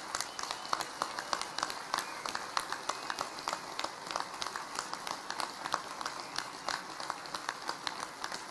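Audience applauding: many people clapping together without pause.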